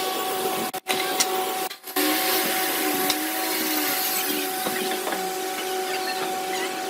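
A woodworking power tool running steadily, a hissing noise with a steady hum. The sound drops out briefly twice near the start.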